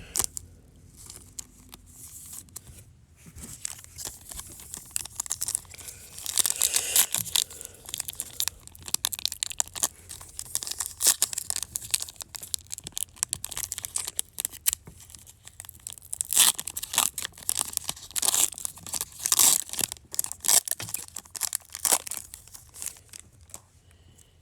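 Foil trading-card pack wrapper being torn open and crinkled, in a long run of sharp crackles. It is loudest about six seconds in and again from about sixteen to twenty-two seconds.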